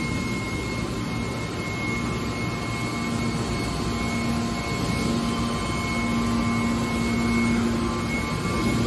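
Hydraulic scrap metal baler's power unit running: a steady whirr with a low hum that grows stronger about three seconds in.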